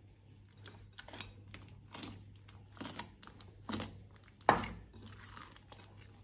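Plastic crinkling and rustling in a series of about five scrunching strokes roughly a second apart, the loudest a sharp one about four and a half seconds in.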